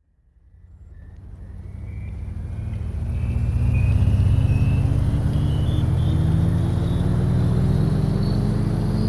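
A steady, engine-like drone fades in from silence over the first few seconds, then holds loud while its pitch slowly rises, with a faint high whine climbing alongside.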